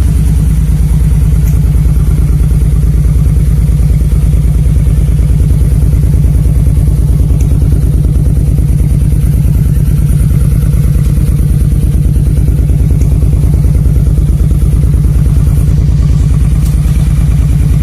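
Engine idling steadily through an exhaust fitted with a newly welded-in baffle, which makes it smoother and a bit quieter; an even run of rapid exhaust pulses with no revving.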